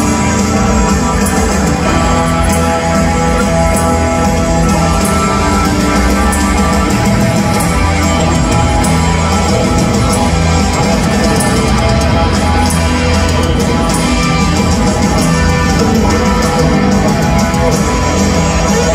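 A rock band with electric guitar, drums and a full orchestra playing loud live rock music.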